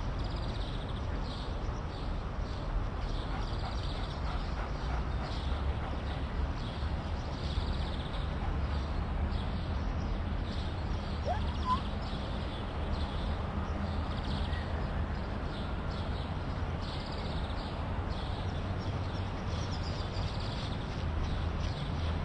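Open-air ambience: a steady low wind rumble on the microphone with faint bird calls, and one short rising chirp about halfway through.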